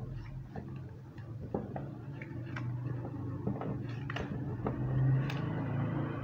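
Paper being folded and creased by hand on a plastic mat: scattered light clicks and rustles at an uneven pace, over a steady low hum.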